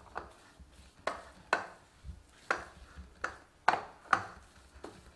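Wooden spatula knocking and scraping against a heavy stainless steel pan while mixing crumbly roasted wheat flour and jaggery: about ten short knocks, roughly two a second.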